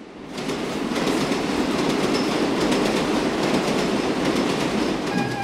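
Subway train running past: a steady rumble with rapid, irregular wheel clatter, fading in over the first second.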